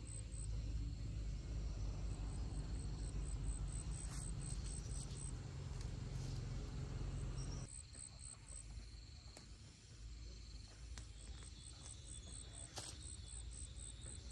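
Insects chirping in a high, rapid pulse of about five beats a second. Under it is a low rumble that cuts off suddenly about eight seconds in, with a couple of faint clicks.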